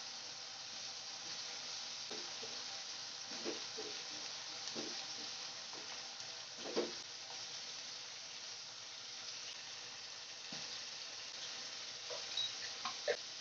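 Chopped chilies, tomato and onion sizzling steadily in oil in a small nonstick saucepan. A few short knocks and scrapes come from a silicone spatula as the vegetables are stirred, the sharpest about seven seconds in and a few more near the end.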